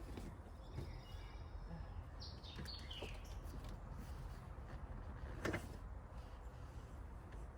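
Faint bird chirps, a few short high calls, over a steady low outdoor rumble, with one sharp knock about five and a half seconds in.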